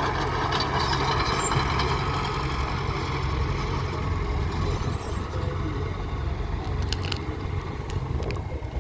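Heavy construction machinery engine running steadily, with a few short clicks about seven seconds in.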